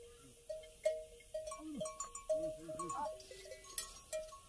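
Bells on a walking herd of water buffalo and cattle clinking irregularly, several short ringing notes a second. Around two to three seconds in, a few short repeated vocal calls sound over the bells.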